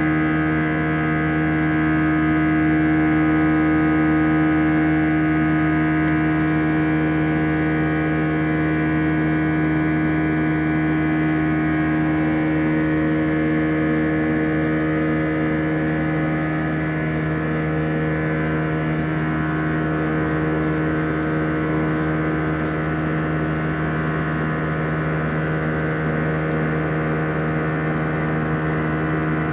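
An Airbus A320's CFM56-5A turbofan engines heard from inside the cabin: a steady, buzzing drone made of several held tones at once.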